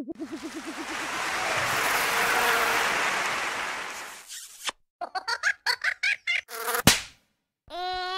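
A string of cartoon sound effects. A wobbling buzz fades out in the first second, then a long whoosh swells and dies away by about four seconds in. A rapid fluttering run of short bursts follows, ending in a sharp click, and a crying wail starts just before the end.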